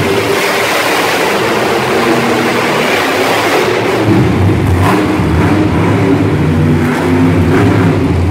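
Monster truck engine running loud and revving, its pitch wavering and the low end growing stronger about halfway through.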